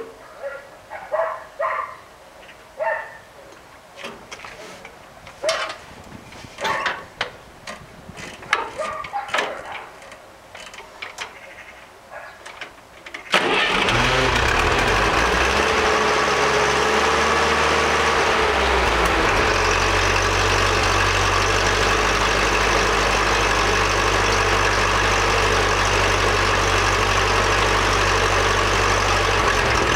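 Ferguson TEA-20 tractor's four-cylinder petrol engine starting suddenly about halfway in, then idling steadily; this is its startup after a wet compression test, with oil squirted into the cylinders. Before the start, scattered clicks and short knocks.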